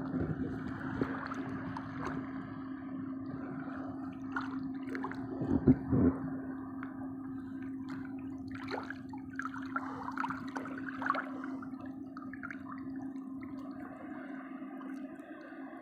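Waves washing and splashing against the shore, with flurries of splashing later on. A pair of sharp knocks about six seconds in, and a steady low hum underneath.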